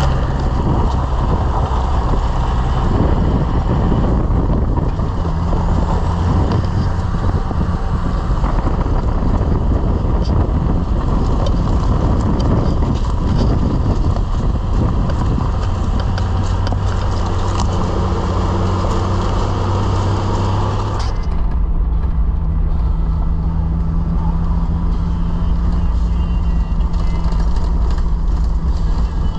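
Toyota LandCruiser Troopcarrier driving along a dirt track, heard from inside the cab: a steady engine hum with tyre and road noise. The engine note shifts about halfway through, and about two-thirds of the way through the sound turns suddenly duller.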